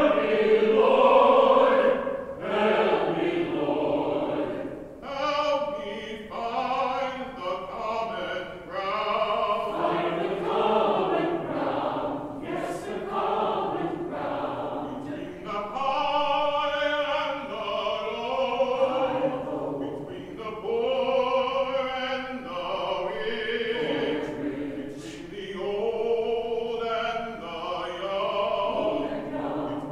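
Mixed choir of men's and women's voices singing, in phrases that swell and ease with short breaths between them.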